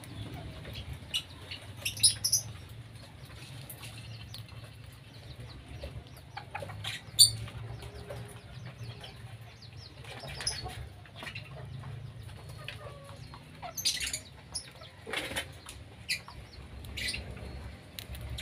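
Lovebirds in a colony aviary giving short, sharp chirps every second or two, with wings flapping, over a steady low hum.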